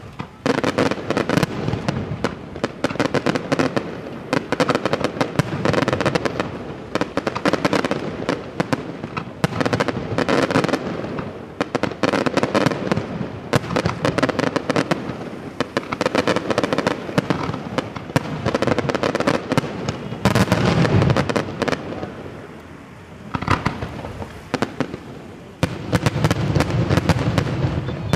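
Daytime aerial fireworks: shells bursting in a dense, rapid barrage of bangs and crackling reports, many per second, with a few brief lulls.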